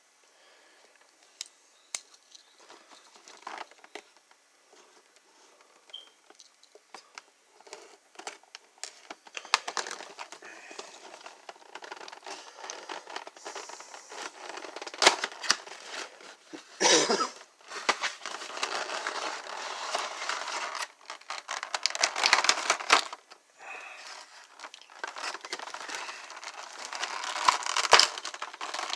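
Action figure packaging being handled and opened: plastic crinkling and tearing with scattered clicks, sparse at first and growing denser and louder about a third of the way in, with a few louder bursts of rustling.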